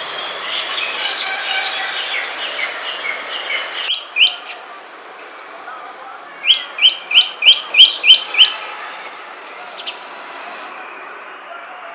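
Songbirds chirping over a hiss of background noise that cuts off abruptly about four seconds in. Then one bird gives two loud calls, and a couple of seconds later a loud run of about seven quick, evenly repeated notes, each dropping sharply in pitch.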